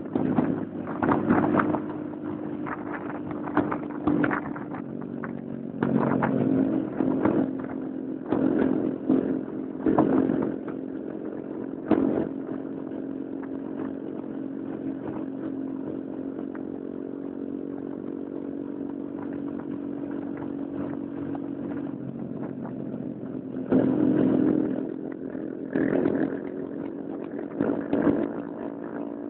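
Motorcycle engine running steadily at cruising speed while riding, with frequent short louder bursts of rushing noise over it, and a calmer, steadier stretch in the middle.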